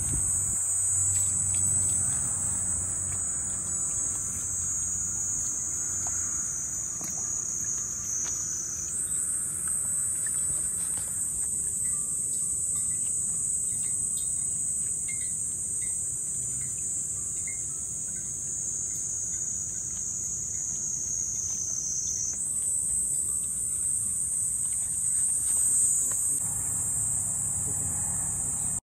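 Insects singing in one continuous high, shrill buzz that slowly sinks in pitch and jumps back up twice, about 9 and 22 seconds in.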